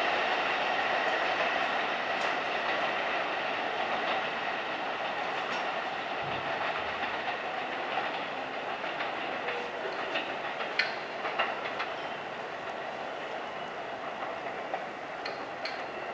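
R160 subway train with Siemens propulsion rolling away along the tracks, its wheels clicking over the rail joints. The steady running noise fades as it recedes, with a few sharper clacks about ten to eleven seconds in.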